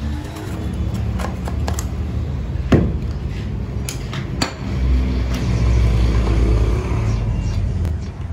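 A steady low drone with a series of sharp knocks and clicks as a fiberglass helmet shell and its mold are handled; the loudest knock comes a little under three seconds in.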